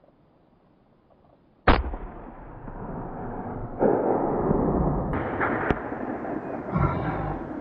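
A single rifle shot cracks out sharply about two seconds in, the loudest thing here, taken at a red stag about 280 yards off. It is followed by a few seconds of rough continuing noise with a couple of sharp clicks.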